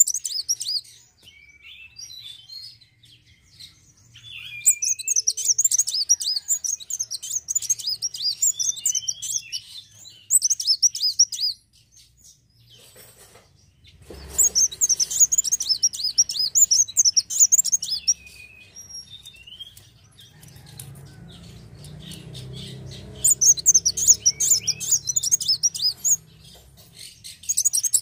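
Male Van Hasselt's sunbird (kolibri wulung) singing: bursts of rapid, high-pitched twittering trills, each lasting one to several seconds, broken by short pauses.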